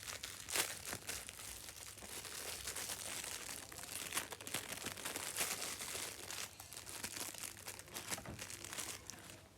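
Crinkly plastic packaging being handled and unwrapped, a run of irregular sharp crackles.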